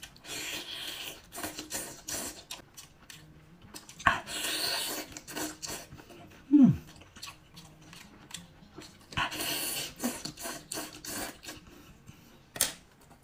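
Close-up eating sounds: shrimp bitten off a skewer and chewed wetly. Three longer slurps are spread through it, and a short falling hum of pleasure comes about halfway.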